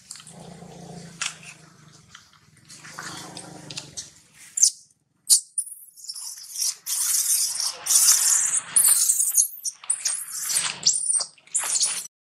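Baby macaque screaming in loud, shrill, repeated bursts from about five seconds in while an adult macaque drags her by force; these are distress cries from a wounded infant. Softer sounds come before the screams start.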